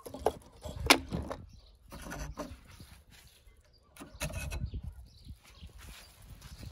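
Light clicks and knocks of die-cast toy cars being set into a wooden toy race ramp and its wooden start gate being handled. One sharp click comes about a second in, with more rattling and handling noise around four seconds in.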